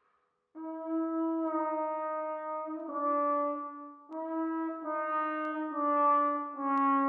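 Trombone played solo: a slow line of held notes that begins about half a second in and steps gradually downward in pitch, with a short breath about four seconds in.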